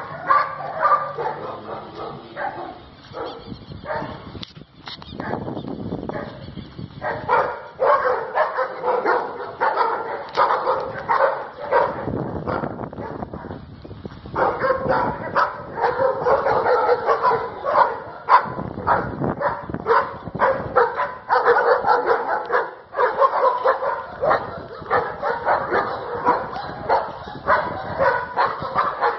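Kennel dogs barking, many short barks overlapping and irregular, with a brief lull about 13 seconds in.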